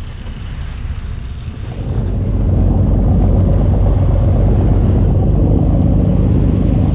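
Boat under way: the engine's low rumble with water rushing along the hull and wind on the microphone, growing louder about two seconds in and then holding steady.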